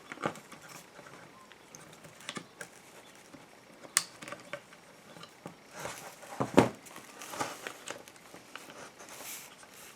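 Small clicks and rustles of pliers working a spring and plastic parts of a car door lock actuator. There is a sharp click about four seconds in and a louder knock between six and seven seconds.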